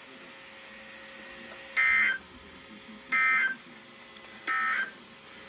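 Three short warbling electronic data bursts about a second and a half apart: the Emergency Alert System end-of-message (EOM) tones on NOAA Weather Radio, closing a tornado watch broadcast.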